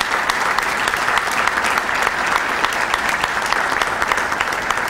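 Audience applauding: many people clapping steadily without a break.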